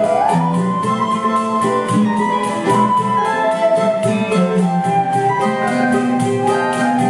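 Choro ensemble playing live: a flute carries the melody over strummed cavaquinhos, seven-string guitar and pandeiro, in a steady, even rhythm. The flute line slides up into a held note at the start.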